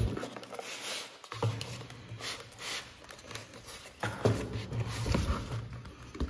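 Cardboard speaker box being handled and pulled open: flaps and sleeve rubbing and scraping, with a few dull knocks as the inner carton and foam tray slide out.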